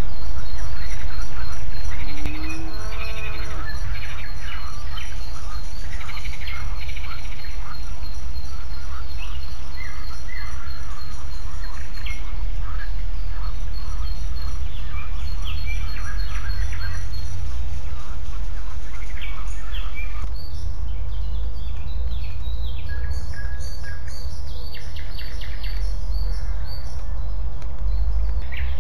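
Many small birds chirping and calling in short, repeated phrases, over a steady low rumble.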